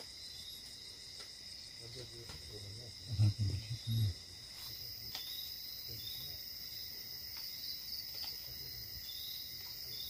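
Night insects, crickets, chirping in a steady high-pitched chorus, with a few low thuds about three to four seconds in.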